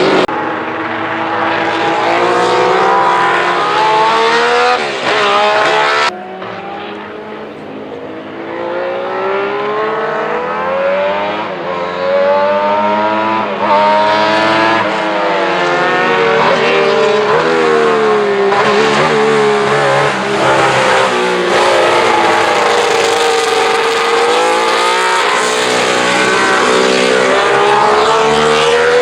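Alfa Romeo 33 SP 12's flat-12 racing engine at speed on track, its pitch rising and falling again and again as it revs up through the gears and drops back under braking. The sound drops suddenly about six seconds in, stays quieter for several seconds, then comes back loud.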